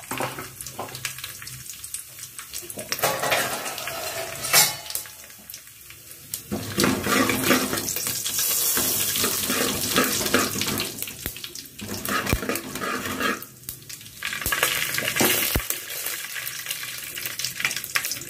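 Mustard and cumin seeds frying in hot oil in an aluminium pot, sizzling and crackling, with a steel spoon stirring and scraping against the pot in the middle part.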